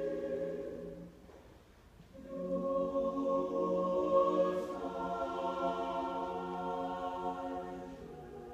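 Mixed choir singing slow, sustained chords. The sound dies away about a second in and the voices come back in just after two seconds, moving to a new chord about halfway through.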